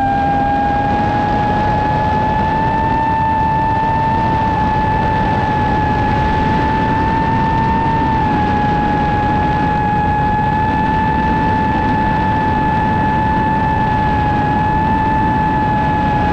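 Long-range FPV quadcopter's brushless motors and propellers whining at a steady pitch in forward flight, recorded on board, with a dense rush of wind noise underneath.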